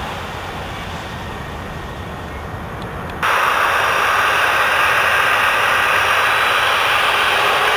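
Jet airliner's engine noise fading as it climbs away, then, about three seconds in, a sudden change to the louder, steady hiss and rumble of a Boeing 737's twin jet engines at low power as it taxis onto the runway.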